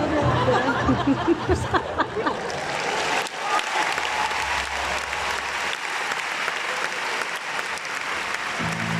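Large concert audience applauding, with the cellos starting to play again near the end.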